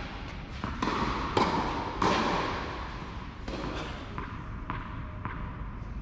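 Tennis ball impacts on a covered clay court: three sharp, echoing pops in quick succession in the first two seconds, then a few fainter taps of the ball bouncing.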